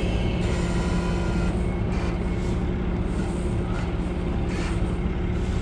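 Heavy truck diesel engine running steadily at an unchanging pitch, plausibly the wrecker's engine powering its winch during the recovery pull.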